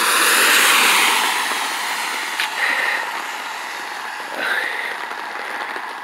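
A car driving past on a wet road: the hiss of its tyres on the wet pavement swells in the first second and slowly fades away over the next few seconds.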